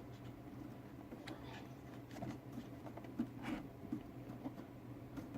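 Faint handling noise of hands working small automotive wires: scattered light clicks and short rustles of plastic-insulated wire being pushed and twisted, over a low steady hum.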